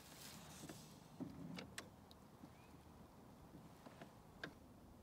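Near silence, with a soft low knock about a second in and a few faint sharp clicks.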